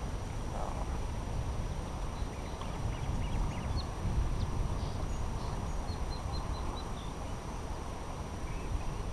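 Steady low outdoor rumble of wind and water, with faint, short, high bird chirps, including a quick run of about five chirps around six seconds in.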